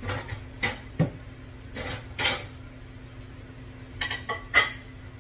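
Dishes and cutlery clattering: a plate and utensils being handled and set down, making a series of sharp clinks and knocks, the loudest about four and a half seconds in.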